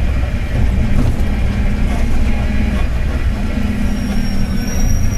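Mercedes-Benz OF-1721 BlueTec 5 bus under way: a steady, low diesel engine and drivetrain rumble with a low driveshaft drone. A faint high whine enters about four seconds in.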